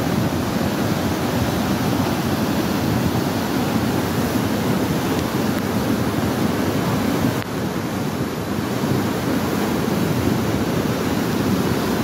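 Muddy, flood-swollen river in flash flood rushing past in a steady, loud torrent of churning water, with a brief dip about seven and a half seconds in.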